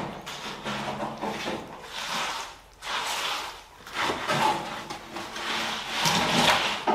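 A long wooden straightedge, with a spirit level on it, scraped back and forth over wet concrete to screed a floor level, in repeated sawing strokes.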